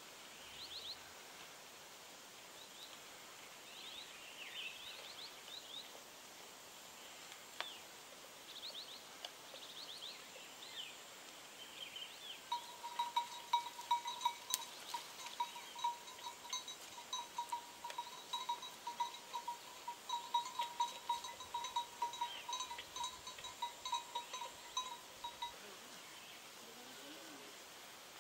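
Small birds chirping in short, falling calls. From about twelve seconds in, a small livestock bell rings in quick pulses of one clear pitch, several a second, for about thirteen seconds.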